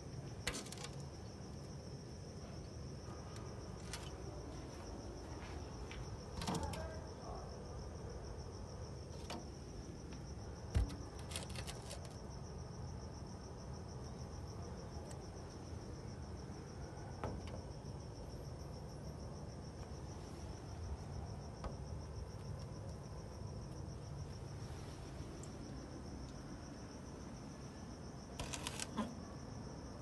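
A steady high-pitched chirring, insect-like, runs throughout, with a few brief sharp sounds scattered through it, clustered about a third of the way in and near the end.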